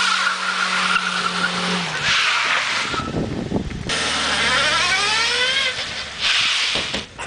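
Opel Corsa B passing close with its engine running steadily, then from about four seconds in a rising whine as the car reverses away.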